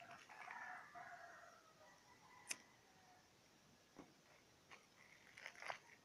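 A rooster crowing faintly once, the call falling in pitch over about a second and a half. A sharp click comes about two and a half seconds in, and a few softer clicks near the end.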